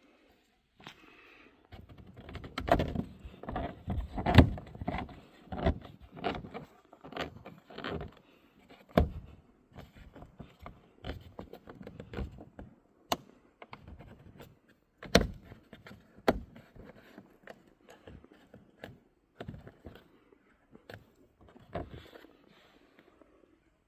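The plastic fog light grille trim of a Skoda Octavia III front bumper being pressed and snapped back into place by hand: a string of irregular plastic clicks and knocks, busiest in the first few seconds, with a few single sharper knocks later.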